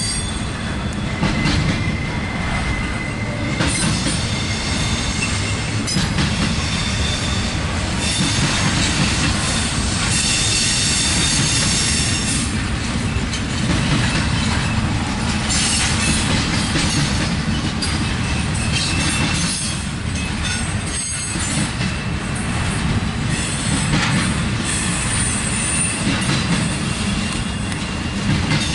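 Intermodal freight cars carrying trailers and containers rolling past close by: a steady low rumble of steel wheels on rail with repeated clicks and knocks over the joints, and thin high-pitched wheel squeal coming and going.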